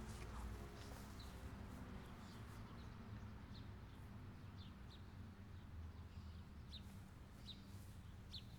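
Faint outdoor ambience: small birds chirping, about ten short high chirps scattered irregularly, over a low steady background hum.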